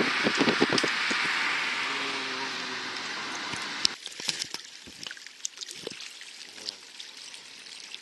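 Road and wind noise inside a moving car, a loud steady rush with a few knocks. At about four seconds it gives way abruptly to small waves lapping and splashing against rocks along a lakeshore, quieter, with scattered sharp clicks.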